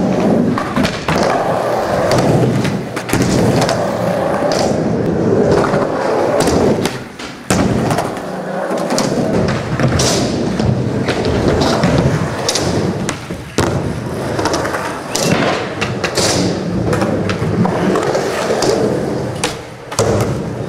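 Skateboard wheels rolling across wooden ramps and floor in an indoor skatepark, with frequent sharp clacks and thuds of the board through the whole stretch.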